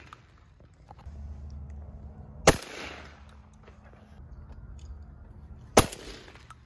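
Two shotgun shots about three seconds apart, each a sharp report with a short echoing tail.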